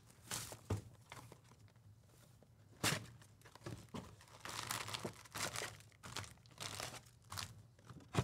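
Wrapper of a Panini Prizm basketball card pack being torn open and crinkled by hand, in irregular rustles with a sharper crackle about three seconds in.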